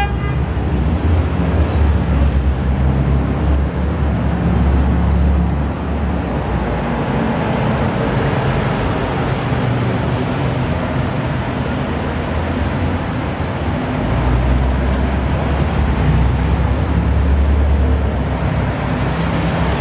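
City traffic on wet roads: a steady wash of engine and tyre noise, with a deep rumble that swells over the first six seconds and again about two-thirds of the way through.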